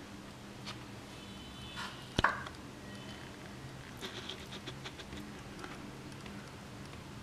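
A metal spoon spreading vegetable masala across toasted bread on a plate: soft scraping and light taps, with one sharp click about two seconds in.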